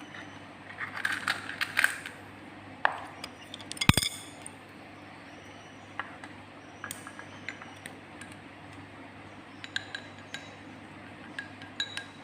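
Kitchen utensils and dishes clinking and tapping, with a sharp knock about four seconds in and scattered light clicks after.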